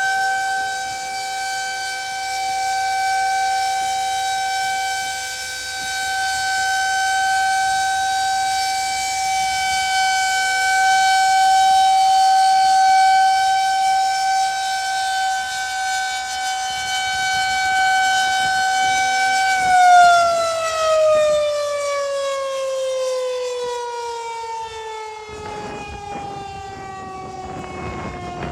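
Federal Signal 2001-130 rotating electromechanical warning siren sounding its steady alert tone, swelling and fading in loudness as it turns. About 20 seconds in, the alert ends and the pitch begins a long, steady fall as the rotor winds down.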